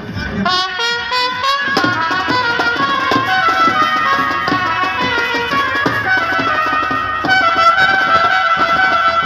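Indian brass band playing: trumpets carry a held, ornamented melody with a warbling run about half a second in, over a steady beat on a stick-played side drum.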